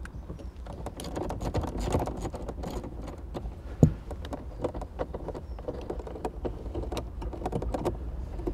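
Light, irregular clicking and tapping of a hand tool undoing a dashboard mounting bolt, with one sharper knock about four seconds in.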